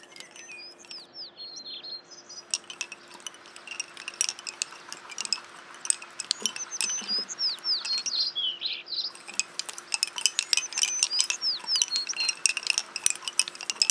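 Wooden lace bobbins clicking rapidly against one another as Idrija bobbin lace is worked, the clicking getting dense about two seconds in. Birds chirp in short falling calls throughout.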